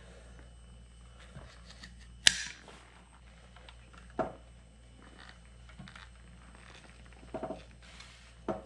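Braided clear vinyl tubing being cut and worked onto plastic plumbing fittings by hand. There is one sharp snap about two seconds in, then a few softer clicks and knocks, over a low steady hum.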